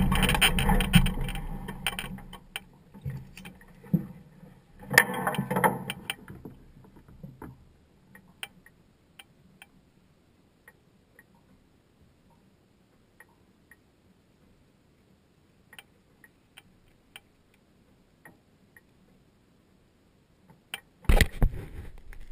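Powered parachute engine and propeller winding down after shutdown, dying away over about two seconds. A few rustles and knocks follow, then near quiet with sparse faint ticks, and loud camera-handling noise near the end.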